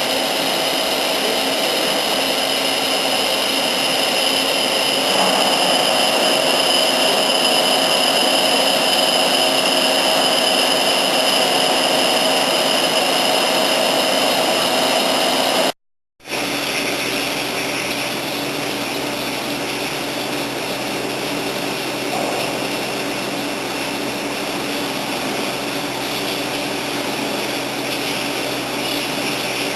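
LC35E CNC machine for toothed circular blades running steadily: a continuous motor noise with a steady high whine. It cuts out for a moment about halfway, then resumes slightly quieter.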